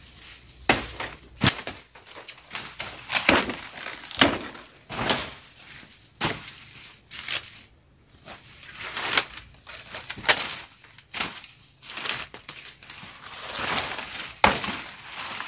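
Machete slashing through weeds and undergrowth, irregular swishing cuts about once a second. A steady high insect drone runs behind.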